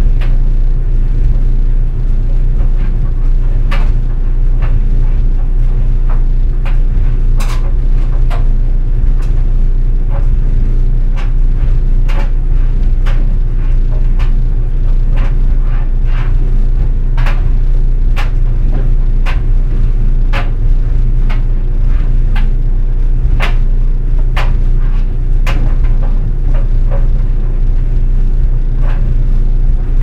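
GE Spacemaker DSKS333E laundry dryer running, with a steady low hum from the tumbling drum and motor. Irregular sharp clicks and scrapes, about one every second, come from a jeans button and zipper knocking against the drum.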